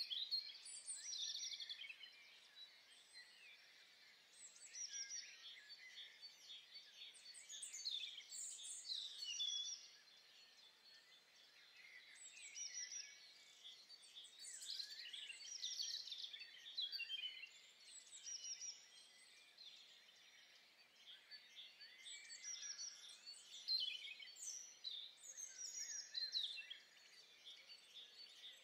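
Faint chirping and twittering of small birds: many short, overlapping calls that come in louder and quieter spells.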